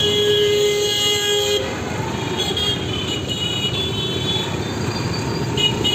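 A vehicle horn sounds for about a second and a half, followed by a few shorter, higher-pitched tones, over steady busy street traffic noise.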